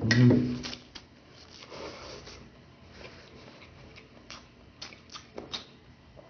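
A mouthful of rice noodles being slurped in, with a brief hummed vocal sound, then soft chewing with scattered wet mouth clicks.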